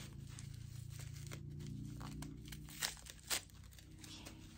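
Wrapping around an unboxed item being torn and crinkled open by hand: soft scattered crackles, with two sharper rips about half a second apart around three seconds in. A faint steady low hum runs underneath.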